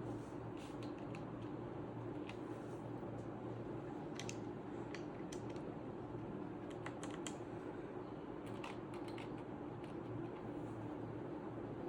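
Scattered, irregular plastic clicks of keys and keycaps on a Redragon K530 Pro mechanical keyboard being pressed, over a steady low hum.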